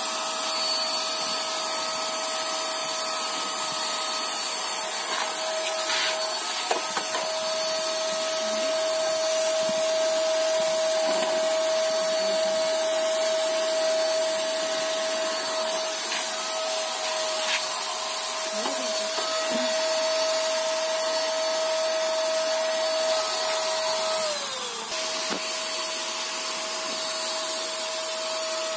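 Electric paint spray gun running with a steady high motor whine over a hiss. About three-quarters of the way through, the whine slides down in pitch and drops away, then comes back near the end.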